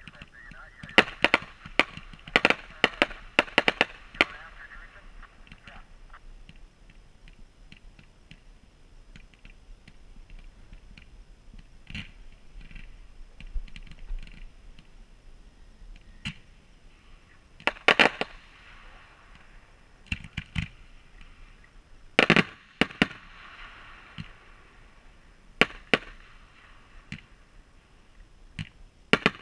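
Fireworks going off. A quick run of sharp bangs and crackle comes in the first few seconds, then single bangs spread out through the rest, with a hiss of burning ground fountains between them.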